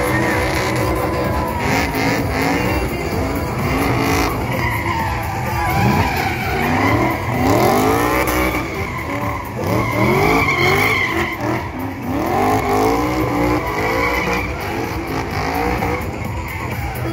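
Drift car engine revving hard up and down over and over, with tyres squealing and skidding.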